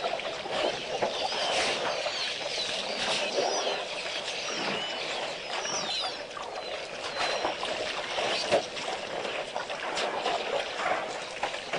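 Water splashing and sloshing as elephants drink and wade at a waterhole, with small birds chirping now and then.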